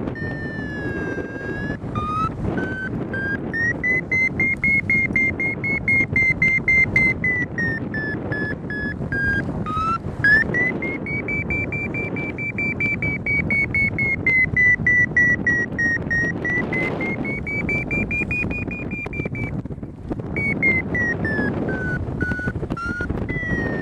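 Paragliding variometer sounding its climb tone: a rapid high beeping whose pitch rises and falls with the climb rate, dipping low about ten seconds in and stopping briefly near twenty seconds, signalling lift in a thermal. Steady wind rush on the microphone underneath.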